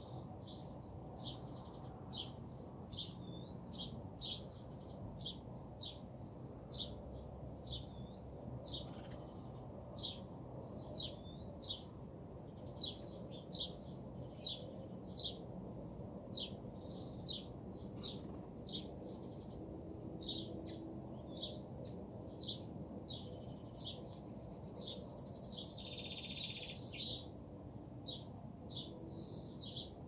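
Small songbirds chirping: a steady run of short, high chirps, one or two a second, with now and then a higher hooked note, over a faint low background rumble.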